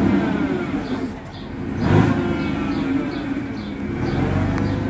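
Forklift engine driving its hydraulic pump: the revs fall away in the first second, a knock comes about two seconds in, and the revs climb again near the end as the mast begins lifting the clamp attachment.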